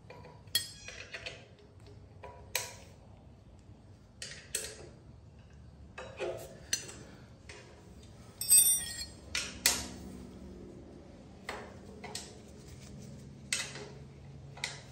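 Scattered metallic clinks and knocks of metal parts and hand tools being handled, a dozen or so irregular strikes with the loudest a little past the middle.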